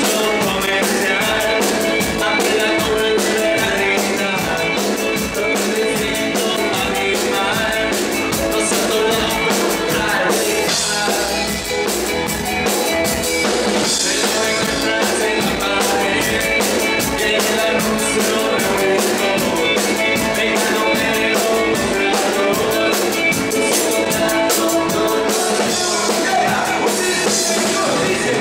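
Live band playing loud, with a drum kit keeping a fast, steady cymbal beat up close, along with electric guitar.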